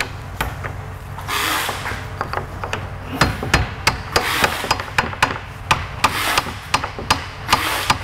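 Hammer tapping a hinge pin down into a wooden armoire door's hinge, using a block of wood: a brief scraping rustle about a second and a half in, then from about three seconds on a quick, uneven run of light taps, roughly three a second.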